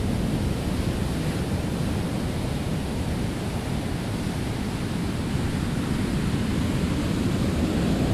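Ocean surf washing and breaking against the shore, with wind on the microphone: a steady, low rushing noise.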